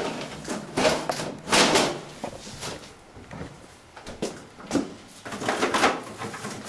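Stainless-steel refrigerator and freezer doors being pulled open and pushed shut while someone rummages inside, an irregular run of clunks and rustles that is loudest about a second and a half in and again near the end.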